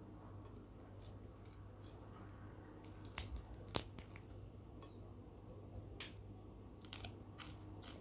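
Faint crisp cracks as a fingertip presses the crunchy tail fin of a pan-fried fish: two sharper snaps a little past three and near four seconds in, then a few lighter ticks.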